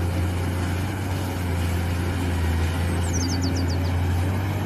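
Caterpillar 390D hydraulic excavator's diesel engine running with a steady low drone as the machine works. A bird chirps a quick run of short notes about three seconds in.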